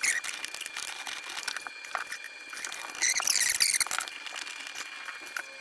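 Small clicks and rustling of gloved hands handling the plastic drain and supply fittings under a sink, with a louder burst of rustling about three seconds in. A faint steady high whine sits underneath.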